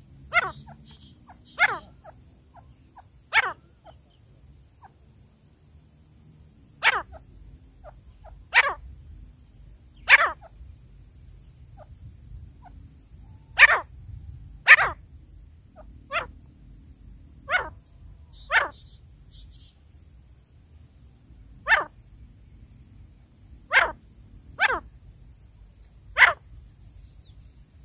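Caged francolins (teetar) giving short, sharp single calls, about fifteen at uneven gaps of one to three seconds, two of them close together about halfway through. Faint high chirps come in near the start and again about two-thirds of the way through.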